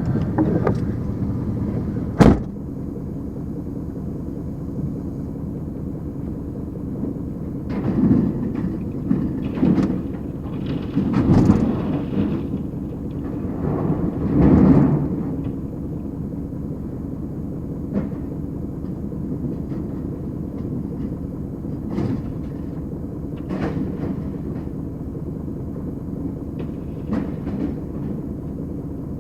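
Car crusher running with a steady low mechanical rumble, a sharp bang about two seconds in, and several louder swells of noise as the car is pressed flat, around eight, eleven and fourteen seconds in.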